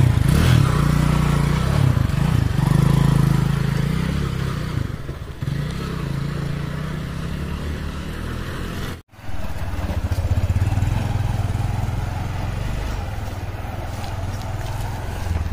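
Honda motorcycle engine running and revving up and down as the bike is ridden over a rough, rocky dirt track. About nine seconds in, the sound cuts out for a moment, then returns as a steadier, lower engine drone.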